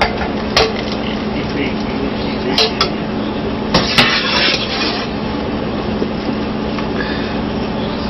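Utensil clinking and scraping against a pot and dishes a few times, as the last noodles are lifted out of the pot, with the loudest clatter about four seconds in. A steady low hum runs underneath.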